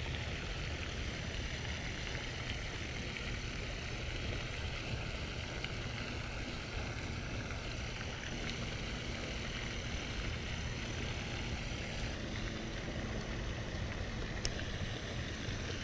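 Steady outdoor background noise: a low rumble with a hiss above it, and a couple of faint clicks near the end.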